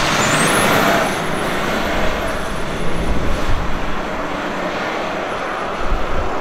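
Ineos Grenadier 4x4 pulling away from a junction and driving off down the road, with steady engine and tyre noise.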